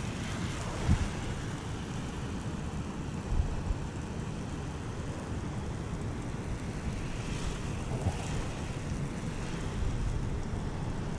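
Soft-wash spray gun on a hose spraying a steady stream of cleaning solution onto asphalt roof shingles, a steady hiss and splatter, with wind rumbling on the microphone.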